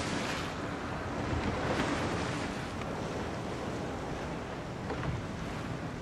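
Wind buffeting the microphone over rushing sea water and waves, a steady noise that swells briefly about two seconds in and again about five seconds in.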